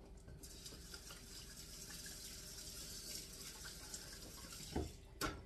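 Water running from a kitchen tap while hands are washed under it. The flow stops shortly before the end and is followed by two short knocks.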